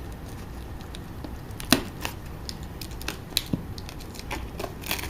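Scattered cracks and crunches of ballast and plastic track as a Bachmann E-Z Track turnout is pried up from its bed, the sharpest crack coming a little under two seconds in.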